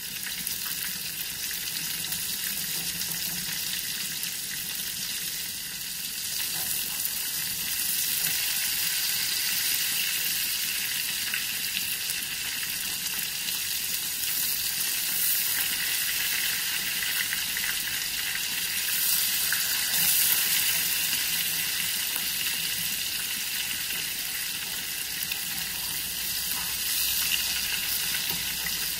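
Ground-beef patties sizzling steadily as they fry in hot olive oil and butter in a frying pan, a little louder from about eight seconds in, with occasional light scrapes of a metal spatula moving them in the pan.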